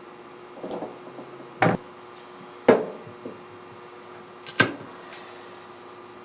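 Three sharp knocks of objects being handled and set down, the first two about a second apart and the third about two seconds later, over a steady hum.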